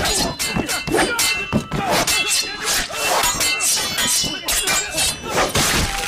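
Staged sword-fight sound effects: rapid clashing and striking impacts, some with a metallic ring, with music underneath.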